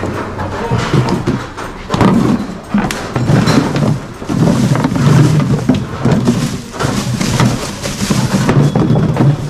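Empty plastic bottles and plastic garbage bags being handled and shifted, with irregular rustling, clattering and dull thumps that rise and fall in loud swells.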